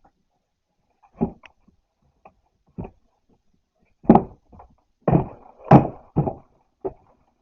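A series of thumps and knocks from a cardboard Elite Trainer Box being handled and pushed about on a table, loudest between about four and six seconds in.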